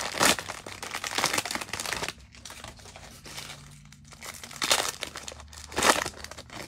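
Plastic wrapper of a Mosaic football cello pack being torn open and crinkled. There are about two seconds of steady crinkling, then quieter rustling, then two short loud crinkles near the end.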